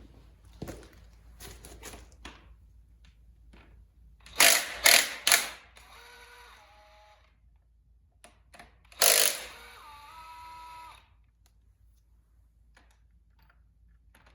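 Metal tools clanking against metal. There are light clicks and taps, then three loud clanks close together about four seconds in, each leaving a short metallic ring. A single louder clank comes a few seconds later and rings for about two seconds.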